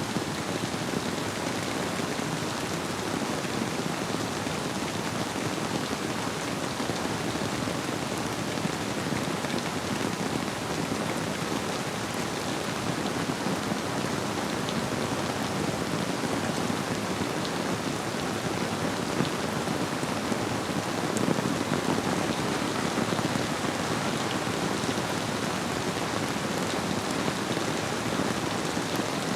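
Steady rain falling, an even dense patter of drops that swells slightly about two-thirds of the way through.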